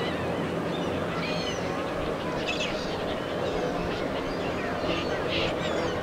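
Birds calling now and then in short curved calls and chirps over a steady background hum.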